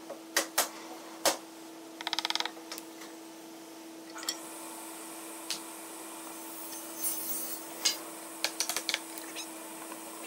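Hardwood furniture parts being fitted together by hand: scattered sharp wooden knocks and clicks as a panel, rail and stile are set into their grooves, with a quick rapid rattle about two seconds in and a cluster of knocks near the end. A steady hum runs underneath.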